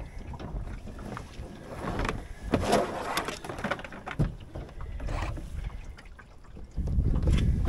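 Aboard a small open sailboat in light wind: scattered knocks and rustles of sail and lines as the spinnaker is set, with a low rush of wind on the microphone near the end.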